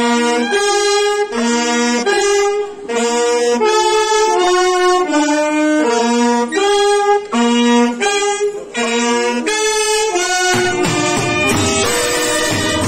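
Brass band of trumpets, saxophones, clarinets and euphonium playing a melody together in sustained notes and short phrases. Drums join about ten seconds in.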